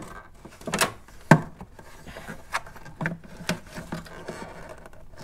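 Hand working the plastic retaining clip on the back of a VW Mk4 GTI headlight housing: two sharp plastic clicks about a second in, the second the loudest, then several lighter clicks and rubbing as the clip is forced back.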